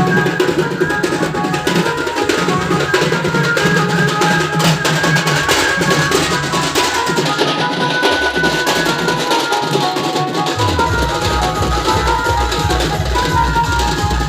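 Loud drum-heavy dance music played over a DJ sound system. A heavy bass beat comes in about ten seconds in, pulsing a few times a second.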